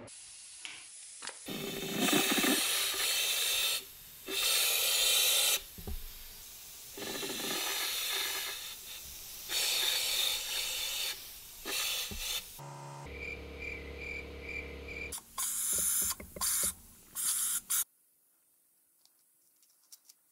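Hand-held powder-coating gun hissing in repeated bursts of compressed air, each a second or two long, as red powder coat is sprayed onto a metal tool part. A short electrical hum with a pulsing tone breaks in about two-thirds of the way through.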